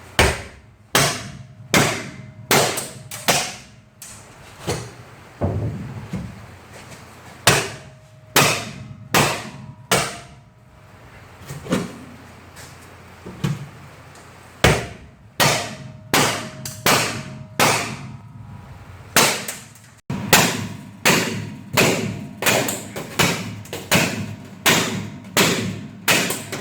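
Sledgehammer blows on the steel rivets of a school bus's sheet-metal ceiling, driving the rivets out. There are dozens of sharp metallic strikes in quick runs with short pauses between, some leaving a faint ring.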